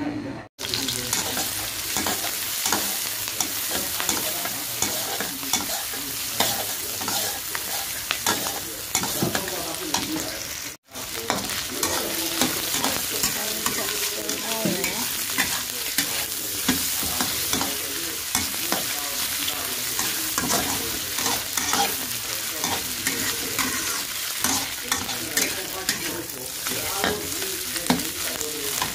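Shallots, garlic, chilli and curly meatballs sizzling in hot oil in a wok, stirred and tossed with a spatula that clicks and scrapes against the pan over and over. The sound cuts out briefly twice, about half a second in and near eleven seconds.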